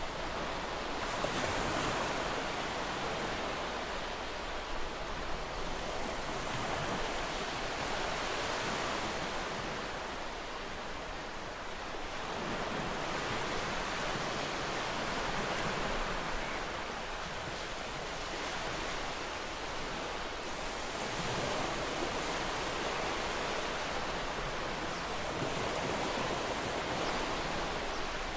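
Ocean waves washing on a shore: a steady hiss of surf that swells and eases about every six seconds.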